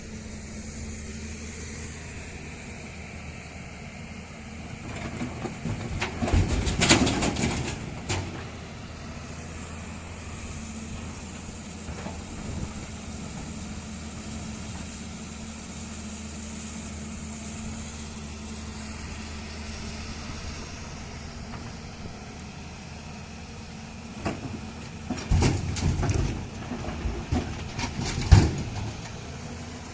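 Diesel engine of heavy farm or construction machinery running steadily with a low hum. Twice, about a quarter of the way in and again near the end, a few seconds of louder, rough noise rise over it.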